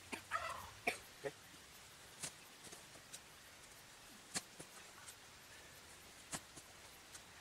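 Spade blade being pushed down through turf and soil to cut a line around a fire pit: a short, sharp crunch about every two seconds, loudest just under a second in. A brief throaty vocal sound comes near the start.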